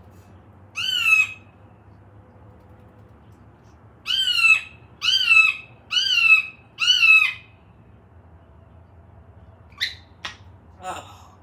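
African grey parrot calling: one call, a pause, then four alike calls about a second apart, each rising and then falling in pitch. A couple of short clicks follow near the end.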